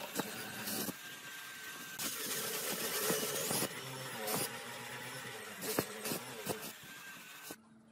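Corded electric hand drill boring a hole into a wooden tabletop, the motor whine and cutting noise swelling and easing as the bit bites, then stopping near the end.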